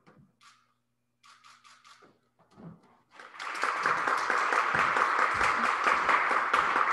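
A few faint claps, then a small group applauding steadily from about three seconds in.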